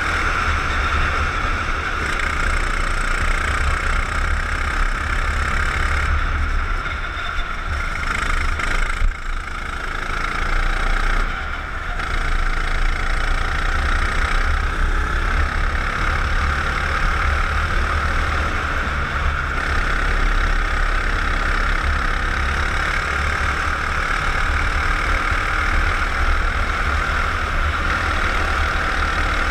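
Go-kart engine running hard at racing speed, heard from on board the kart with low wind rumble on the microphone; the engine note dips twice about a third of the way through as the driver eases off for corners.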